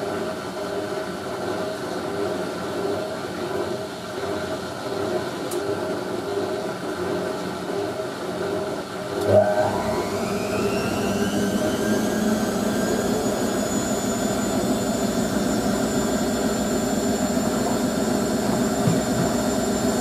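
Hotpoint 9530 washing machine running in its spin: a steady machine hum, then about halfway a clunk and a rising whine as the motor speeds the drum up, settling into a steady high whine a few seconds later.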